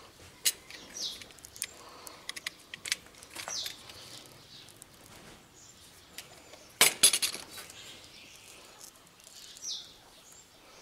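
Scattered light clicks and clinks of hands working a welding cable end and a utility knife, with a sharper cluster of knocks about seven seconds in. A bird chirps briefly a few times in the background.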